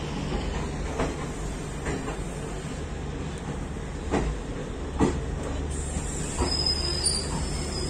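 Indian Railways Garib Rath express train running along the track: a steady rumble of the moving coach with a few clunks as the wheels pass over rail joints.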